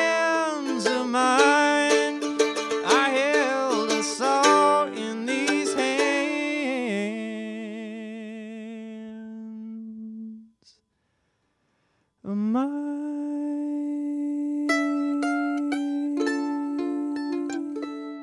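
Acoustic mandolin playing, its notes ringing out and fading away about ten seconds in. After a short silence the mandolin starts again with a long held note, then single plucked notes.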